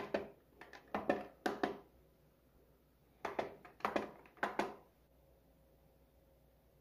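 Buttons on a Silvercrest SBB850E1 bread maker's control panel being pressed: a quick run of clicks, a pause of about a second and a half, then a second run of clicks.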